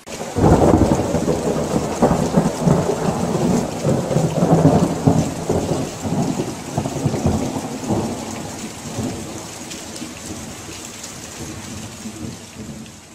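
A long roll of thunder that starts suddenly about half a second in, then rumbles unevenly and slowly fades away, over the steady hiss of rain.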